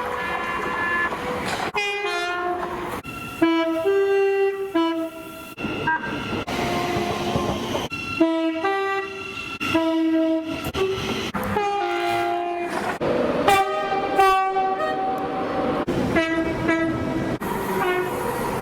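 British train horns, one short clip after another with abrupt cuts between them. Mostly two-tone horns sounding their high and low notes in turn, some blasts short and some held for a second or more.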